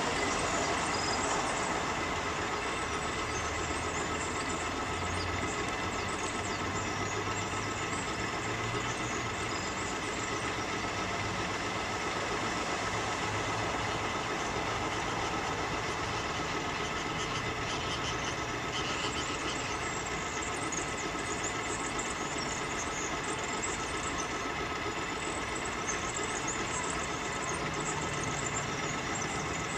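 Small motor of a model vessel running steadily: a constant whine of several high tones over a hiss, with a low hum that wavers slightly.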